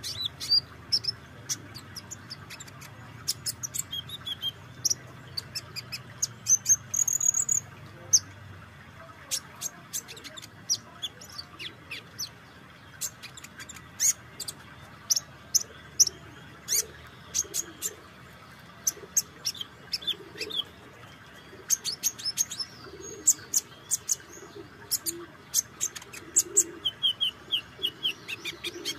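Van Hasselt's sunbird calling: a long run of sharp, high ticks, loose at times and in quick clusters at others, mixed with short high twittering chirps and trills.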